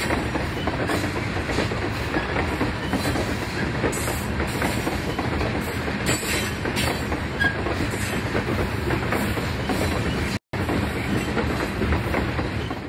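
Freight train cars rolling past with a steady rumble, wheels clicking over rail joints; the sound breaks off for a split second near the end.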